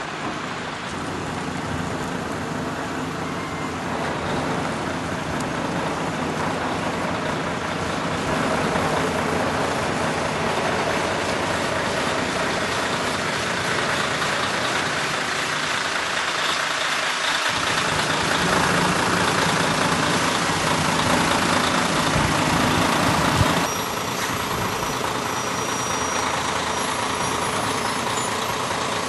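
Heavy diesel engine of a crane or truck running steadily, getting louder about a third of the way in and dropping back somewhat near the end.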